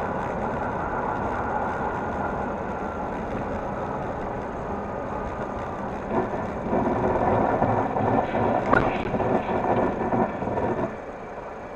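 Car's road and engine noise from inside the cabin, driving on a snow-covered road as a steady rumble. About six seconds in it grows louder and rougher, with a sharp knock near nine seconds, then settles back down near the end.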